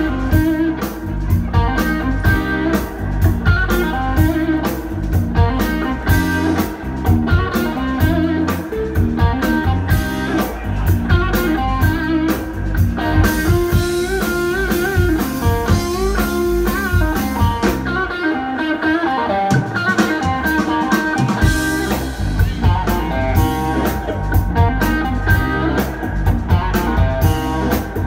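Live blues band: electric guitar played through a Colorsound Bluesman amp over bass guitar and a drum kit keeping a steady beat. About two-thirds through, the bass and drums drop out for a few seconds, leaving the guitar alone, then the band comes back in.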